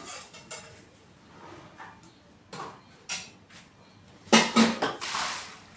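A few scattered sharp clinks and knocks of a metal utensil against a frying pan, the loudest a close pair about four seconds in, followed by a brief hiss.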